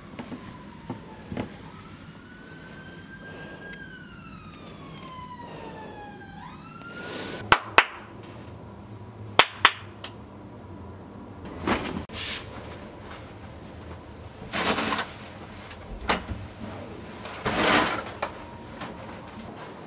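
A siren wailing, its pitch rising and then falling over a few seconds and sweeping up again at the end. It is followed by a few sharp knocks and several short bursts of rustling.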